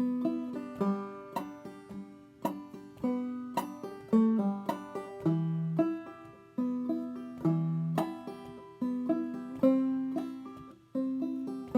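Five-string banjo played clawhammer style in open G tuning, a steady run of plucked and brushed notes in a minor-sounding old-time tune.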